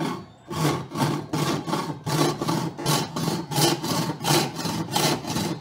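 Old wooden-framed bow saw cutting through wood in quick back-and-forth strokes, about three a second, its teeth rasping on each stroke.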